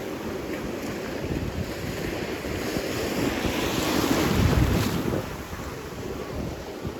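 Sea waves washing on the shore, one swelling to a peak about four to five seconds in and then falling away, with wind buffeting the microphone.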